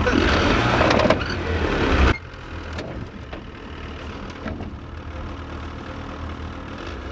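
Snowmobile engine idling with a steady low hum. A louder rush of sound in the first two seconds drops off suddenly about two seconds in.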